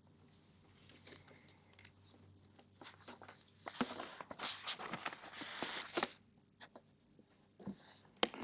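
Faint rustling and small clicks of papers being handled on a lectern, with a busier patch of rustling about three to six seconds in.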